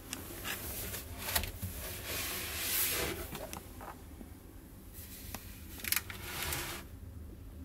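Handling noises: soft rustling swells and a few light clicks, with a hand taking hold of a plastic water jug near the end.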